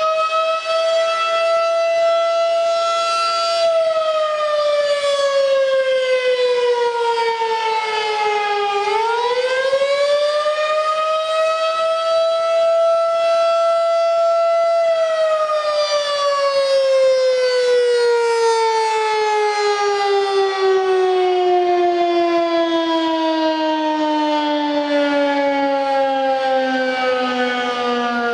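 Federal Signal 2001-SRN electromechanical tornado siren sounding one loud tone with strong overtones. It holds at full pitch, sags and climbs back to full pitch about a third of the way in, holds again, then winds down, its pitch falling slowly and steadily through the second half.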